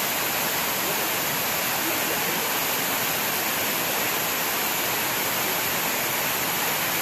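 Waterfall rushing: a steady, even roar of falling water, close to the microphone.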